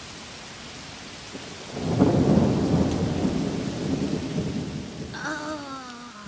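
Heavy rain falling steadily; about two seconds in, a long rumble of thunder builds and slowly dies away under the rain.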